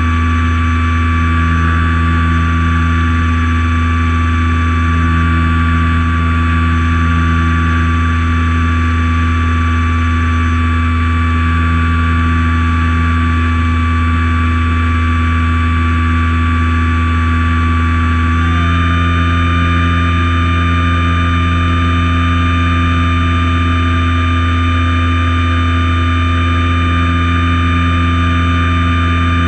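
Light aircraft's engine and propeller running steadily in flight, a loud low drone with steady whining tones over it. About 18 seconds in, the tones shift in pitch, one rising slightly and another dropping.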